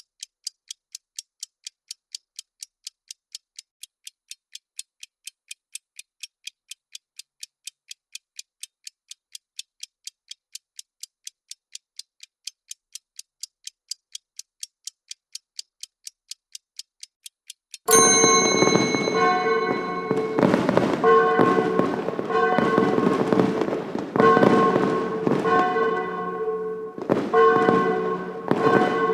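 Countdown timer's clock ticking, a steady, even, high-pitched tick, until about eighteen seconds in, when it cuts abruptly to the end-of-countdown alert: festive music with fireworks bangs and crackling.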